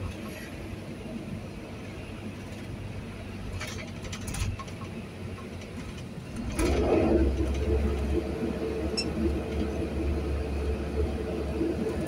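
Vehicle engine and road noise heard from inside the cab. About halfway through it gets louder, with a steady low hum and a steady drone above it.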